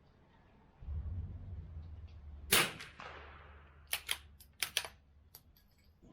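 A single shot from an Anschutz Model 64MPR bolt-action .22 LR rifle firing Lapua Center-X, about two and a half seconds in, with a trailing echo. It is followed by a quick series of metallic clicks as the bolt is worked. A low rumble runs underneath.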